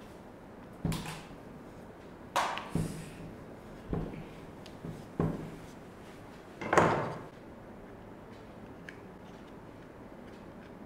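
Wooden rolling pin knocking on a round rolling board and the countertop while dough is rolled out: about six separate sharp knocks over some seven seconds, the last and loudest about seven seconds in.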